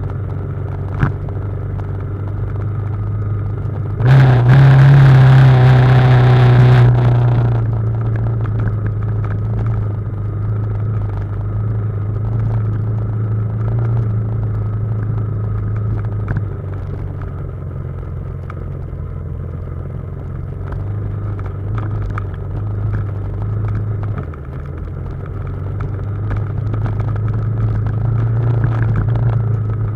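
Motorcycle engine, the BMW G310GS's single cylinder, running steadily at low revs on a downhill trail, with scattered knocks from the rough ground. About four seconds in a much louder, noisier rush lasts some three seconds before the steady engine note returns.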